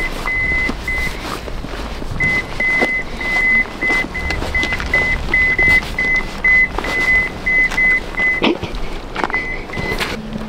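High electronic beeping, one pitch repeated in an uneven run of short and longer beeps about two to three a second, over background music.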